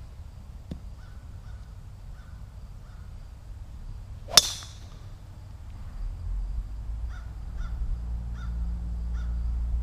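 A golf club strikes a ball about four seconds in: one sharp crack with a brief metallic ring. A bird calls repeatedly with short calls before the strike and again several times near the end, while a low rumble rises over the last few seconds.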